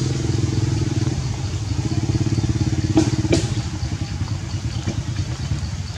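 A small engine running steadily, easing off in the last couple of seconds, with two sharp clicks about three seconds in.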